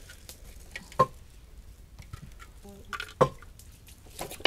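Handling of the cooking gear over the charcoal pots: a few sharp knocks and clicks, the two loudest about two seconds apart, over a faint steady hiss.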